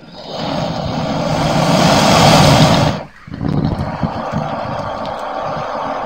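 Crocodile growling: two long, rough calls, the first growing louder and breaking off about three seconds in, the second following after a short gap.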